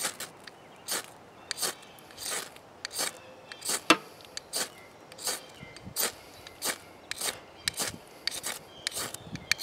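Ferro rod struck repeatedly with a metal striker, a sharp rasping scrape about every two-thirds of a second, more than a dozen strokes, throwing sparks onto a piece of charred punky pine wood.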